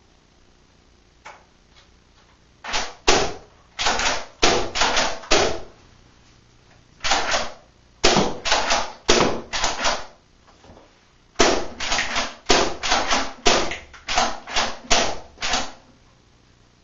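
Nerf Raider pump-action dart blaster being pumped and fired again and again: sharp plastic clacks of the slide and shots, about three a second, in several runs with short pauses between them.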